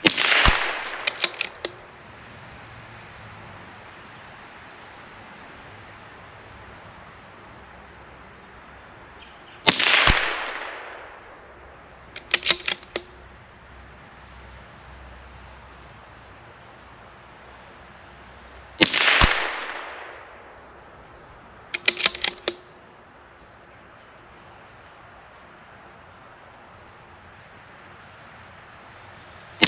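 Three shots from a CZ 457 bolt-action .22LR rifle firing supersonic SK High Velocity ammunition, about nine seconds apart. After each shot the bolt is worked with a quick run of metal clicks. A steady high chirr of crickets runs underneath.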